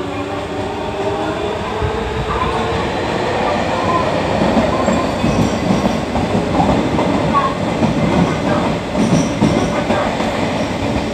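Toshiba GTO-VVVF inverter traction motors of an unrefurbished Nagoya subway 6000-series car whining in rising tones as the train accelerates. The whine fades within the first couple of seconds into the louder rumble and clatter of wheels on rails at speed, heard from inside the car.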